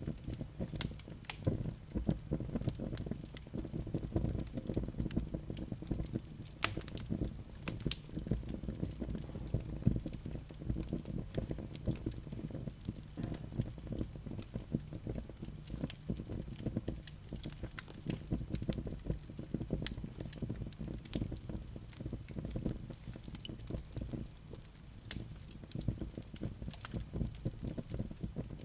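Wood fire burning in a fireplace: a steady low rumble of flames with many irregular sharp crackles and pops from the burning logs.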